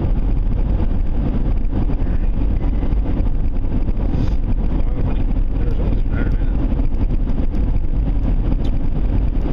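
Steady low rumble of a vehicle on the move: engine and road noise.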